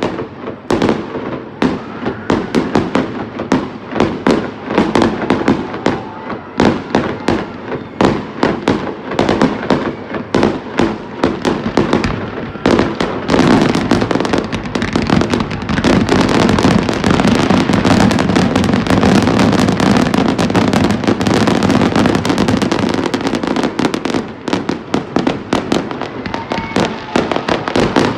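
Fireworks launching and bursting: a rapid string of sharp bangs and crackles. Around the middle it thickens into an almost continuous barrage for about ten seconds, then breaks back into separate bangs near the end.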